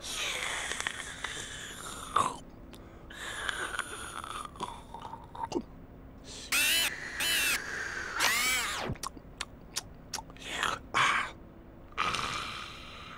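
Slowed-down Teletubby custard-eating sounds: scattered slurps and smacks, with two short high pitched sounds a little past halfway and a sound falling in pitch soon after.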